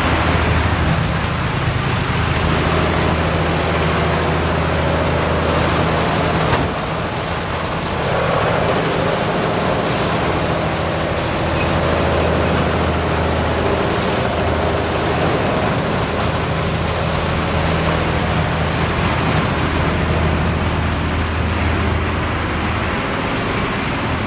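Large drum wood chipper running loudly: a low hum that drops out about six and a half seconds in and returns twice, over a dense, steady machine noise.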